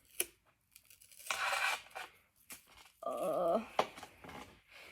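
Tape being pulled off the roll and wrapped around a hockey stick handle, with a rough ripping peel about a second and a half in.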